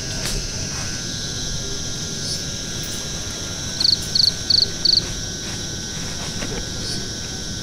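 Steady high-pitched drone of an insect chorus in the forest. About four seconds in, four short, loud chirps come in quick succession.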